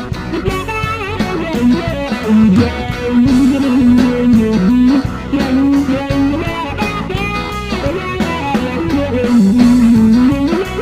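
Rock band playing an instrumental passage: an electric guitar lead of sustained, bent notes with vibrato over bass and drums.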